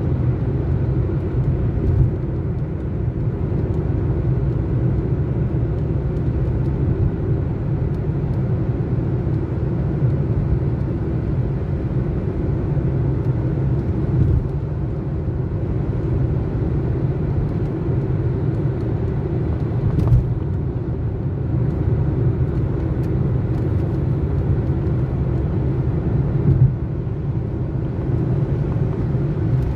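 Steady low rumble of a car's tyres and engine heard from inside the cabin while cruising on an expressway, with a few light thumps along the way.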